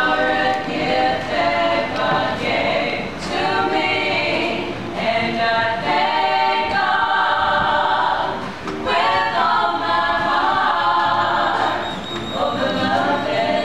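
A small group of voices singing together in harmony without instruments, holding long notes through unbroken phrases with short pauses about nine and twelve seconds in.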